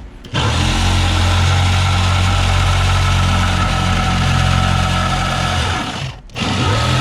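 Electric power saw cutting through the galley woodwork along a marked line, running steadily; it stops briefly about six seconds in and starts again.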